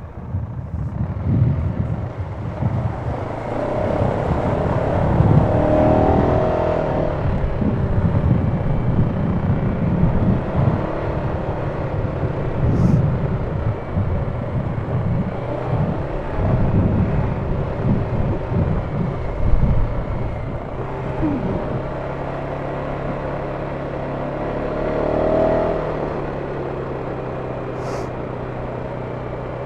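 ATV engine running as the machine travels a rough trail, with uneven low rumbling on the microphone. About two-thirds of the way in, the rumbling eases and a steady engine hum remains.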